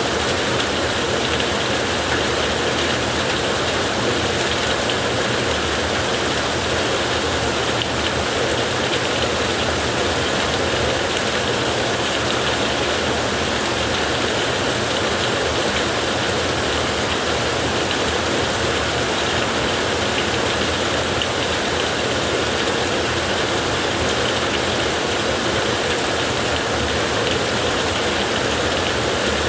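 Heavy rain falling on a tin roof: a steady, dense wash of noise that holds the same level throughout, with no thunder.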